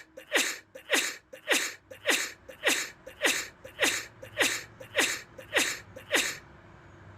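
A person sneezing over and over in rapid succession, about a dozen sneezes at nearly two a second, each a short burst that falls in pitch. The run stops abruptly about six seconds in.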